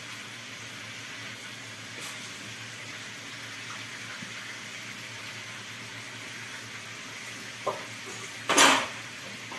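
Chicken pieces and pineapple rings sizzling steadily in a frying pan in their thick, reduced sauce. A brief loud clatter comes near the end.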